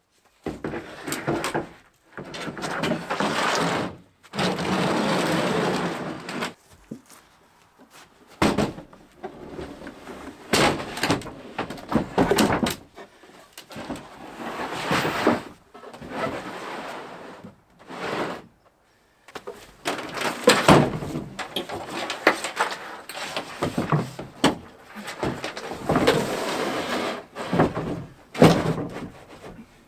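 Hands-on installation work noises: stretches of scraping and rubbing broken by sharp knocks and clunks, stopping and starting abruptly.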